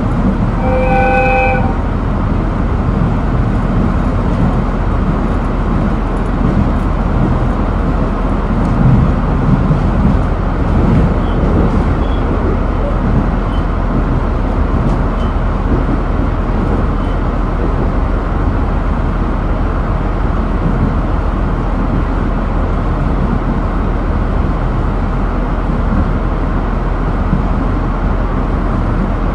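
GV-E400 diesel-electric railcar under way, heard from inside the car: a steady running noise of engine and wheels on rail, with a short single horn blast about a second in.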